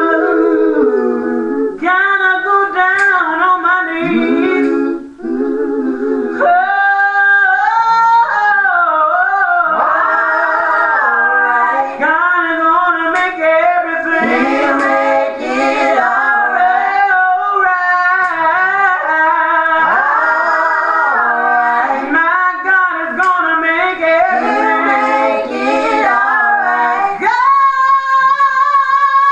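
A woman singing a gospel song, her voice gliding through runs of notes; near the end she holds one steady note.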